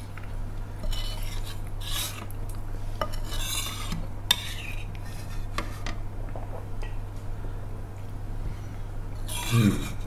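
Metal serving spoon scraping and clinking against a pot and plates as curry is dished out, in a string of short separate knocks, over a steady low hum.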